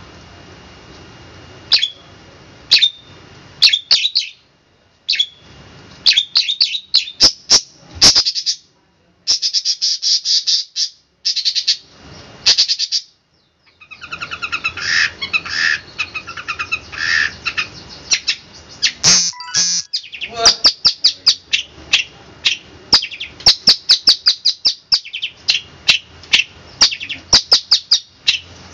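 Long-tailed shrike (cendet) singing loudly in the 'tembakan' style: quick runs of sharp, high repeated notes. After a short break in the middle comes a fuller, more varied stretch of song, and then rapid runs of notes again.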